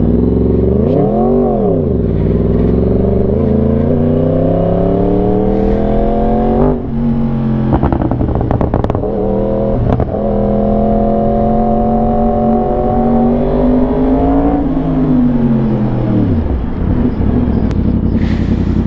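Yamaha R1 sport bike's inline-four engine pulling away from a stop. The revs climb, drop sharply at a gear change about a third of the way in, and climb again, then fall away as the bike slows near the end.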